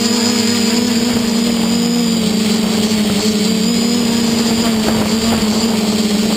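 Quadcopter's brushless motors (SunnySky 2212 980kv) spinning 10x5 propellers, a steady buzzing drone that wavers slightly in pitch, with a faint high whine above it.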